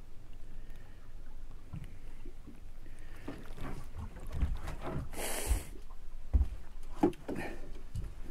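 Handling noise aboard a small boat: a low rumble with several dull knocks from about four seconds in, and a short hiss about five seconds in.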